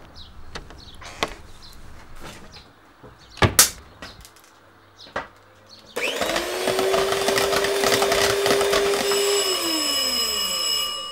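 Soft handling sounds and a sharp click, then an electric hand mixer switches on about halfway through and runs steadily. About three seconds later it is switched off, and its pitch falls as the motor winds down.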